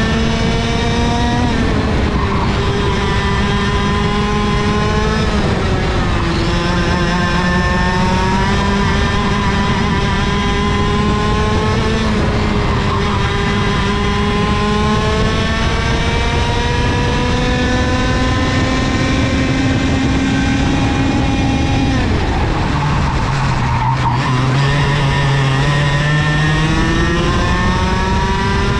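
A kart's air-cooled 100cc two-stroke engine (IAME KA100) heard onboard at race pace, its note climbing steadily along the straights and dropping sharply under braking about four times. The deepest, longest drop comes about three-quarters of the way through, before the engine climbs again near the end.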